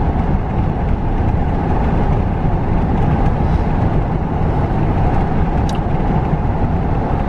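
A car driving at a steady speed: a constant rumble of road and engine noise.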